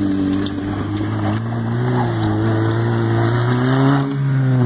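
Chevrolet Cavalier engine held at high revs as the car spins donuts on grass, its pitch wavering, dropping briefly about four seconds in and then picking up again.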